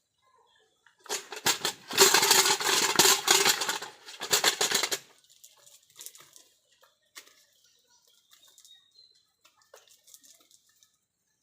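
Loud splashing and thrashing in water for about four seconds, starting about a second in, then only faint scattered clicks and taps.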